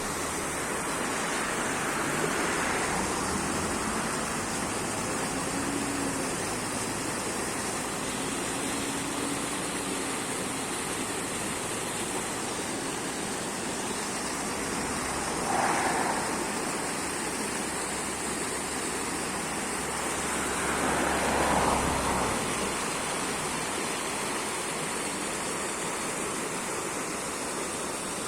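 Steady rushing noise of flowing water, swelling briefly a few times.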